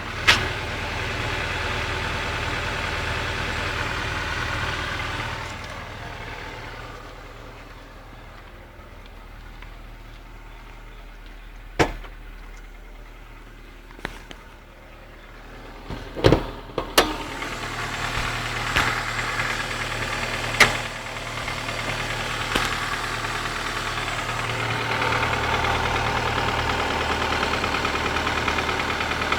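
Car engine running with a knock that appeared after spun crankshaft bearings and a crankshaft replacement; the owner says the knock is loud under load when cold and fades once warm. The engine is louder for the first few seconds, drops back, then builds again in the second half, with several sharp clicks along the way.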